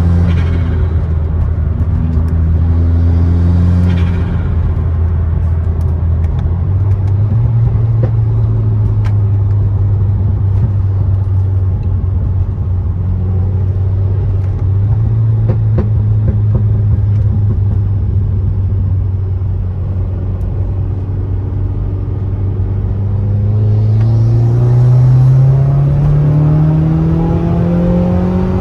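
Subaru WRX's turbocharged flat-four running at steady revs, stepping up in pitch about seven seconds in, then rising steadily under acceleration near the end. Brief hiss near the start and about four seconds in.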